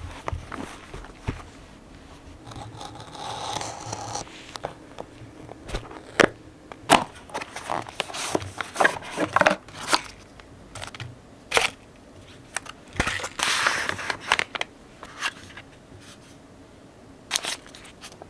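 Kitchen handling sounds: scattered clicks and knocks of dishes or utensils being set down and handled. Rustling or crinkling comes about three seconds in and again around thirteen seconds.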